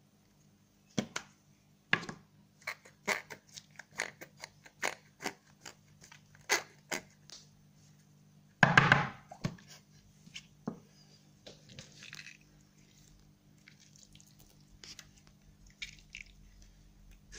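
Snap-on plastic lid of a slime tub clicking and cracking as it is worked off, a quick run of sharp clicks for several seconds, then one louder rush of noise a little after halfway. After that, fainter soft squishes of glittery slime being pulled and stretched by hand.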